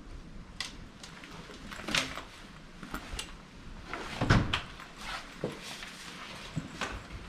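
Scattered knocks, clicks and rustling of small objects being handled, coming irregularly. The loudest is a knock with a dull thud about four seconds in.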